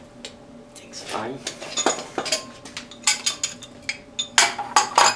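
Sharp metallic clinks and knocks, some ringing briefly, coming faster and louder after the first second, as a Watts thermal expansion tank and its brass threaded fitting are handled.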